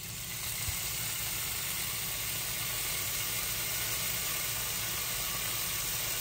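Beef bacon sizzling as it is laid into a preheated nonstick sauté pan. The sizzle comes up as the strip goes in and then holds steady.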